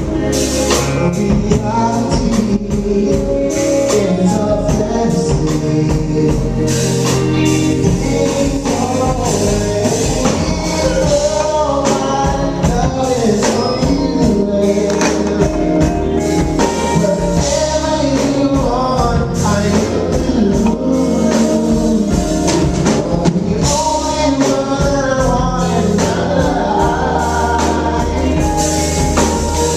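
A funk band plays live with a singer, a steady bass line, a drum kit and a tambourine.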